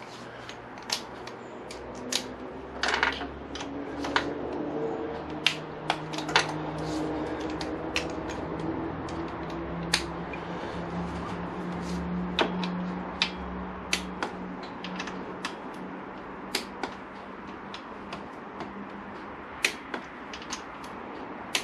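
Torque wrench and socket extension on the Honda VFR800's cam cover bolts: sharp metal clicks and clacks at irregular intervals as the tools are fitted and the bolts are torqued on a second checking pass, over a faint steady hum.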